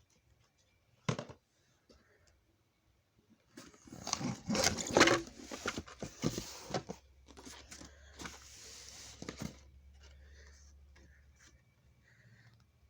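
Packaging being opened by hand: a click about a second in, then several seconds of tearing and crinkling rustle that stops near the end.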